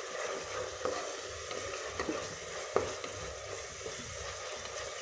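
Onion-tomato-curd masala frying and sizzling in oil in a steel pressure cooker while a wooden spatula stirs it, with a few light knocks of the spatula against the pot. It is being fried until the oil separates from the masala.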